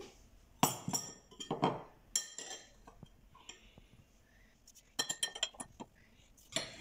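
Metal spoon clinking and scraping against a small glass bowl while sugar is scooped out: scattered taps, then a quick run of clinks about five seconds in.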